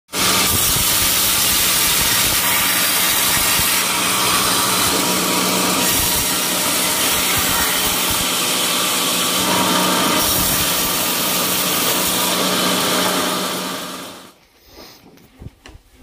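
Band sawmill blade cutting through a dry teak log: a loud, steady rasp of the blade over a constant motor hum. The sound drops away about fourteen seconds in.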